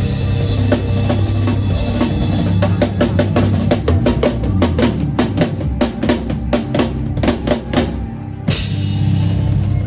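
Drum kit played along with a backing track with a steady bass line: a long run of quick, even snare and tom hits through the middle, then a short dip and a loud crash-cymbal hit near the end as the full groove returns.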